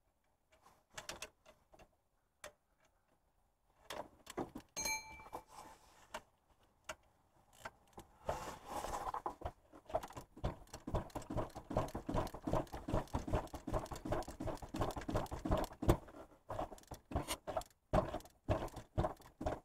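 Ratchet wrench clicking in quick repeated strokes while loosening a buried serpentine-belt tensioner bolt. A few separate metallic clicks come first, and the steady run of clicks begins about eight seconds in.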